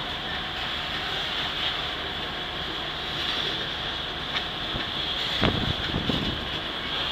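A freight train of loaded covered grain hopper cars rolling past, a steady rumble and hiss of steel wheels on rail, with a couple of thumps a little past the middle.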